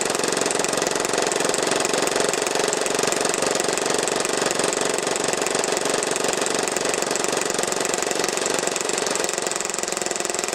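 Action Army AAP-01 gas blowback airsoft pistol firing on full auto in one unbroken burst: a very fast, steady rattle of shots and slide cycling.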